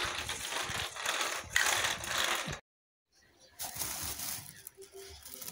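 Fresh green beans being snapped and trimmed by hand: a dense run of crisp cracks and rustles that stops suddenly about halfway through, followed by a few quieter handling sounds.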